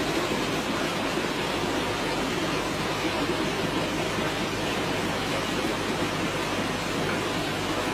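Steady, even hiss of aquarium air bubbling: airstones sending streams of bubbles up through the tank water.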